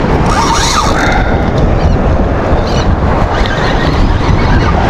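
Wind buffeting the microphone in a steady low rumble, with waves washing against the jetty rocks.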